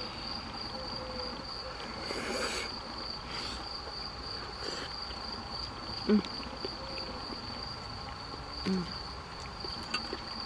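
Insects trilling in one steady, high-pitched tone, with two brief soft sounds about six and nine seconds in.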